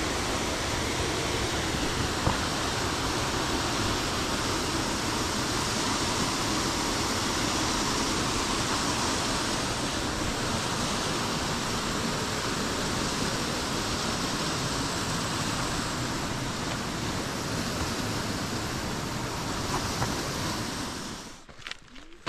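Steady rushing of a waterfall and creek in the canyon below, which drops away abruptly near the end, leaving footsteps on the rocky trail.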